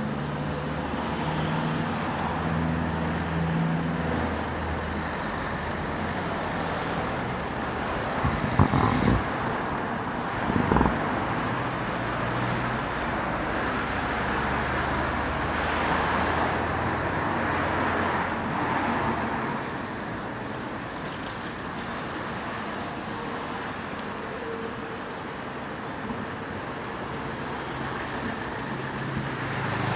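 Street traffic: engines and tyre noise of cars passing steadily, with a louder vehicle swelling past around the middle. Two short knocks come about a third of the way in.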